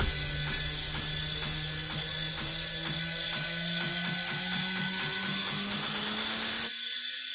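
Homemade electric roller bender running, its gear motor driving the rollers as a steel strip is rolled into a curve: a steady hum with regular clicking and a faint rising whine. The low hum cuts out near the end as the machine stops.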